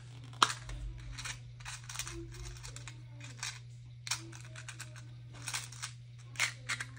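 Scattered light clicks and crinkles of paper and plastic being handled on a desk, with a sharper click about half a second in, over a steady low electrical hum.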